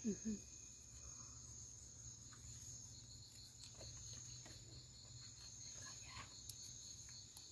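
Faint night-time crickets chirping steadily: a thin, high, continuous trill that pulses in an even rhythm, over a low steady hum.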